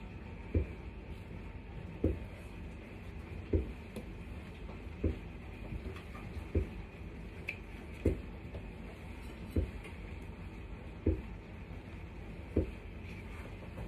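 Aging household dishwasher running: a steady low hum with a dull thump that comes back evenly about every one and a half seconds. It is noisy, which the owner puts down to the machine getting old.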